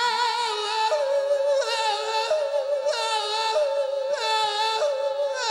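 A male rock singer wailing high, unaccompanied held notes into a microphone. The notes waver and step to a new pitch about every second, with no band behind the voice.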